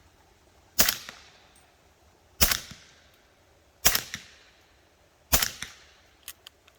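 Four suppressed rifle shots about a second and a half apart: a .300 Blackout short-barreled AR firing 220-grain subsonic ammunition through a SilencerCo Hybrid 46 suppressor. Each is a sharp crack with a short tail. A few light clicks follow near the end.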